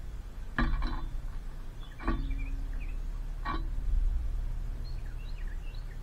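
Faint, short, high chirps from small songbirds in two loose runs, one in the middle and one near the end, over a steady low rumble. Three short sharp knocks stand out as the loudest sounds, about a second and a half apart in the first half.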